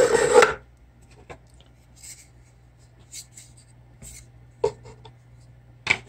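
Thin bamboo divider boards being slid into the slotted grooves of a bamboo box: a brief rub at the start, then scattered light wood-on-wood taps and clicks, with two sharper knocks in the last second and a half.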